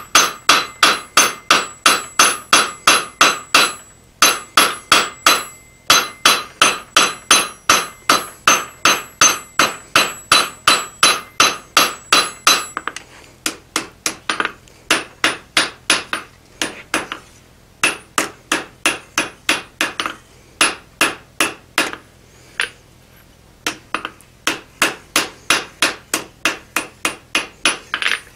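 Hand hammer striking red-hot steel on an anvil, forging the bevel of a blade, in a steady run of about three ringing blows a second. After about thirteen seconds the blows come in shorter, uneven groups with brief pauses and less ring.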